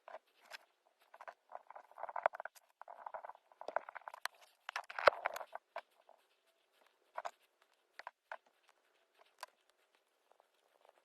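Light, irregular clicks and scuffs of small metal parts being handled, busiest in the first half with a louder clack about five seconds in, then only scattered ticks.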